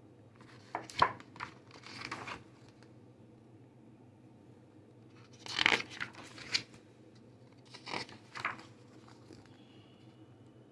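Paper pages of a picture book being turned and handled: several brief rustles and flicks in four separate groups.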